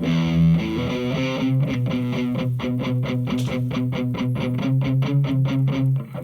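Electric guitar played through a Hughes & Kettner Attax Metroverb transistor amp with overdrive. A chord rings out first, then a fast, even run of picked notes follows, about five or six a second, stopping near the end.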